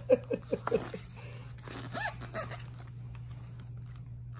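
A young girl's voice: a quick run of four or five short, clipped vocal sounds in the first second, then a brief rising-and-falling voiced sound about two seconds in, over a steady low hum.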